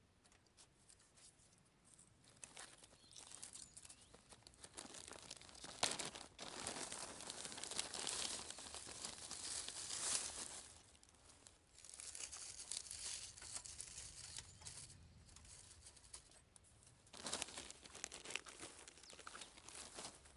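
A clear plastic bag crinkling and rustling as it is handled, in several bouts of crackling.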